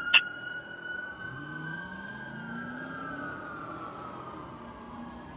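Fire engine siren holding a long wail that slides slowly down in pitch as it winds down, with a short sharp blip just after the start, the loudest moment. Underneath, the truck's engine rises in pitch as it accelerates.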